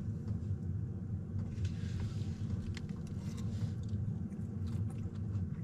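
Steady low drone of a diesel air heater running, with a few faint clicks of chewing over it.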